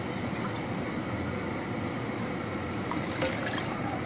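Water pouring steadily from a pot into a pan of meat stew.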